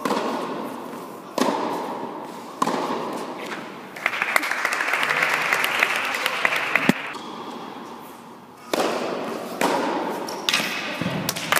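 Tennis balls being struck by rackets and bouncing, each hit sharp and echoing around an indoor court. In the middle, a few seconds of spectators clapping.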